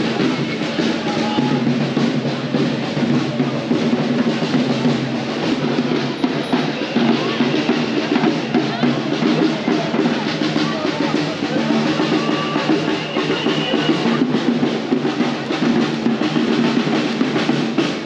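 A percussion band drumming without pause, many dense drum hits with deep bass-drum strokes.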